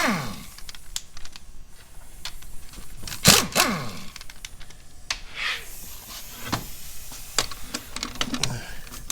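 Hand ratchet wrench clicking in quick runs while bolts are worked loose, with a couple of louder metallic clanks that ring briefly, one right at the start and one about three seconds in.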